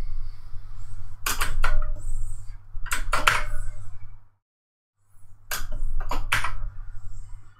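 Sharp clicks from working at the computer, in three quick groups of two or three, over a steady low hum. The sound cuts out completely for about a second in the middle.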